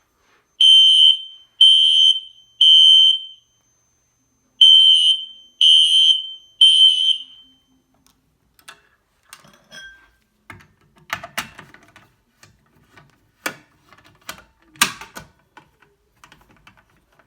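Fire alarm sounding the temporal-three evacuation pattern: three high-pitched beeps, a pause, then three more. The beeping stops about halfway through and is followed by scattered light clicks and knocks.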